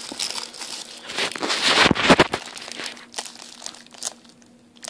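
Clear plastic wrapping crinkling and rustling as it is handled around a belt and its metal buckle, a dense crackle of small snaps, loudest about two seconds in and then dying down.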